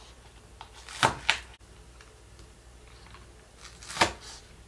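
Kitchen knife chopping scallions on a wooden cutting board: sharp chops, two close together about a second in and another near the end.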